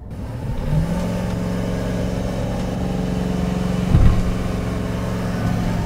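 Stock 2020 GMC Sierra 1500's 5.3-litre V8 revving up in the first second and held at steady high revs for a burnout attempt, with a brief thump about four seconds in. The tyres don't break loose: there is too much traction with the truck in four-wheel drive.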